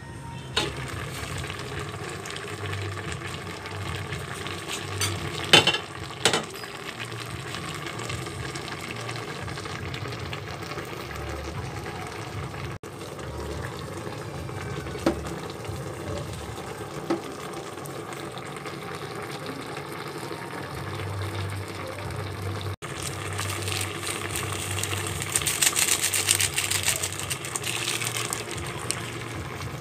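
Pot of fish and vinegar broth bubbling at a boil, with a few sharp clinks of the glass lid in the first several seconds. The bubbling grows louder and more crackly near the end.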